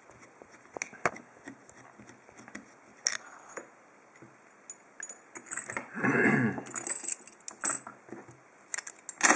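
Small metal clicks and clinks of a screwdriver and a stainless steel padlock being handled as the lock is taken apart: a few scattered clicks, then a denser run of clinks in the second half. A brief pitched sound about six seconds in is the loudest part.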